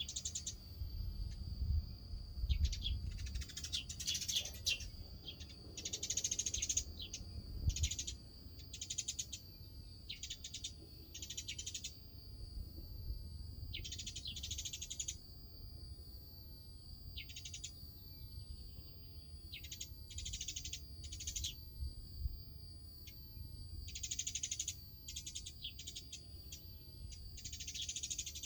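Birds squabbling: harsh, high calls in short bursts about every one to two seconds, over a steady high-pitched hum and a low rumble.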